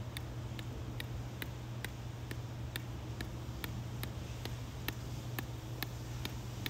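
Short, evenly spaced ticks, about two a second, over a steady low hum.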